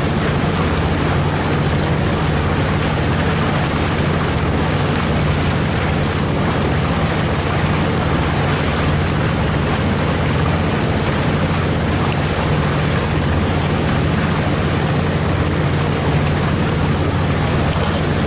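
Motorboat engine running steadily under way, a constant low drone, with water rushing along the hull.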